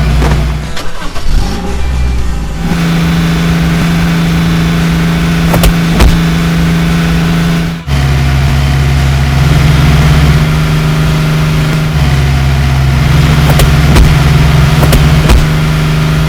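Heavy vehicle engine running in a steady low drone that jumps abruptly between a few fixed pitches, with a brief break about eight seconds in and a few sharp clicks.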